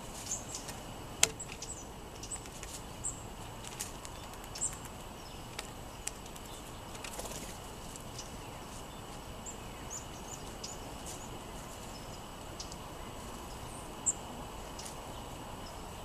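Small songbirds giving short, high chip notes scattered through, over a steady background hiss with a faint steady high tone. Several sharp clicks stand out, the loudest a little over a second in.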